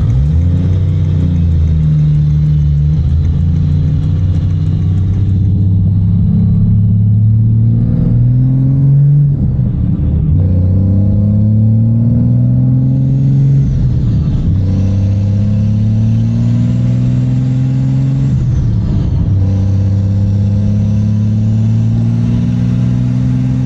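A 2004 Ram 3500's 5.9 L Cummins turbo-diesel inline-six under way, heard from inside the cab. It climbs in pitch as the truck accelerates and drops back at each gear change, about five times over.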